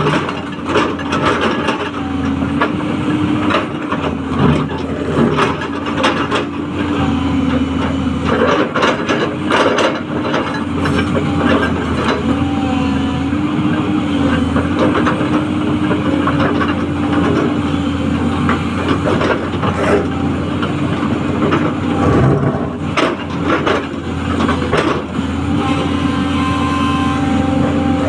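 Crawler excavator's diesel engine running steadily under hydraulic load, a wavering drone, with occasional clanks and knocks.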